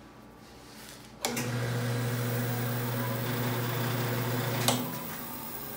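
King bandsaw's electric motor switched on with a click about a second in, running with a steady hum, then switched off with another click near the end.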